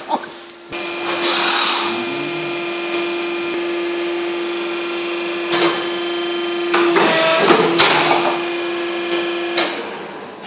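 A small machine motor running with a steady, even whine that cuts off suddenly near the end. A short burst of hissing comes about a second in, and there is some clattering around seven to eight seconds in.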